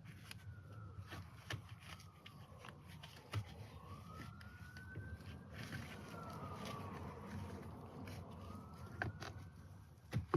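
A distant siren wailing faintly, its pitch slowly rising and falling about every five seconds. Beneath it are scattered small clicks and rubs of hands working a rubber-backed stainless steel pedal cover onto a brake pedal.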